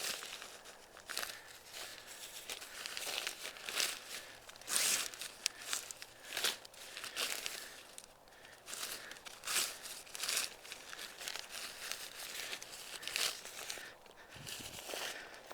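Lightweight tent fabric crinkling and rustling in irregular bursts as it is handled during setup.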